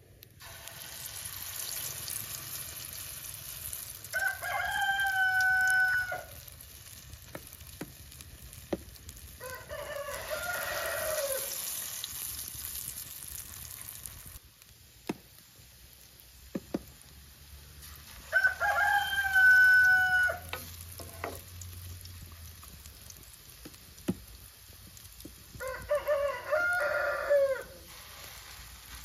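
A rooster crows several times, each crow about two seconds long and louder than everything else, over the steady sizzle of spoonfuls of green herb batter frying in oil in a metal pan over a wood fire. A few light clicks come in the middle.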